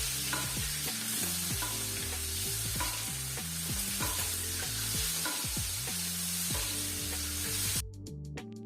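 Steak sizzling in a frying pan of hot foaming butter as it is basted, butter spooned over the meat. The sizzle cuts out suddenly shortly before the end.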